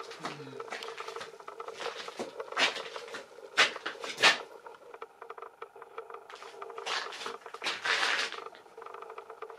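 Irregular footsteps crunching and scuffing on a gritty stone floor in a small stone room, with a few sharper crunches in the middle and a scuffing stretch near the end. A steady low hum runs underneath.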